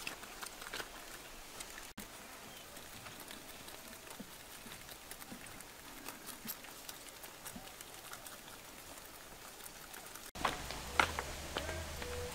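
Young rabbits nibbling and rustling cabbage leaves: faint, irregular little crunches and ticks over a quiet outdoor hiss. Near the end, background music with steady low notes comes in.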